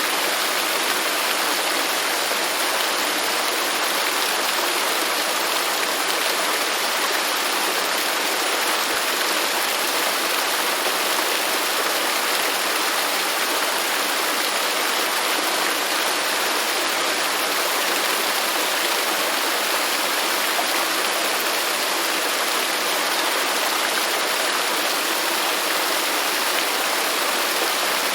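Waterfall and the stream below it rushing steadily, a dense even white-water noise.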